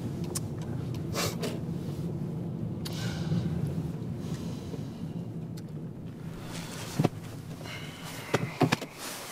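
Quiet car-interior ambience: a steady low hum with a few soft clicks, knocks and clothing rustles as the men in the seats shift about. The hum fades out near the end.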